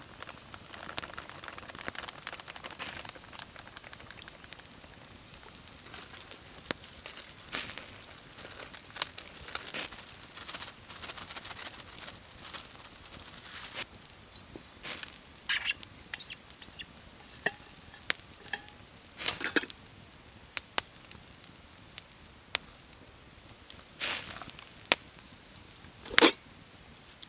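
Hands handling a paper bag and stainless steel camp cookware: crinkling paper rustles and small clicks and taps, scattered unevenly over a steady faint hiss. Near the end comes a sharper, louder clink as the steel bottle and pot lid are handled.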